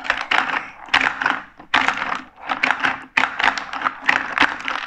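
Rapid plastic clacking from a Hungry Hungry Hippos game as the hippo levers are pressed over and over, the hippo heads snapping and marbles rattling on the plastic board, with a couple of brief lulls.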